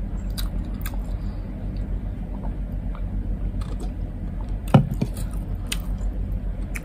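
Quiet eating sounds of rice and pork eaten by hand, with a few small clicks. A sharp knock comes a little under five seconds in as a drink can is set down on the wooden table. A steady low hum runs underneath.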